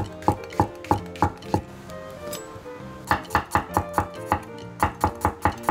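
Chef's knife chopping shiitake mushroom and then garlic cloves on an end-grain wooden cutting board: sharp knocks about three a second, a pause of over a second, then a faster run of chops.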